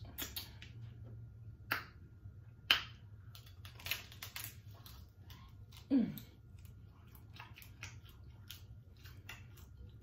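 Close-up mouth sounds of eating: scattered wet smacks and chewing clicks while eating a turkey leg, with meat being torn from the bone by hand. A short falling "mm" hum about six seconds in.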